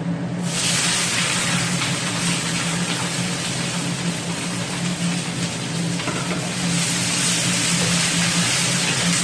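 Chopped cabbage, carrot and mushrooms hitting a wok of hot oil on high heat, breaking into a steady sizzle about half a second in as they are stir-fried with a wooden spatula. A steady low hum runs underneath.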